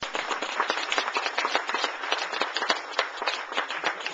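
Small audience applauding, many pairs of hands clapping in a dense, uneven patter.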